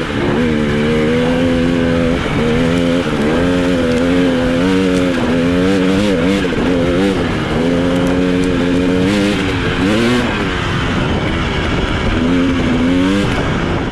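KTM 300 single-cylinder two-stroke dirt bike engine under hard throttle, its revs holding steady for a second or two at a time, then dropping and climbing again several times.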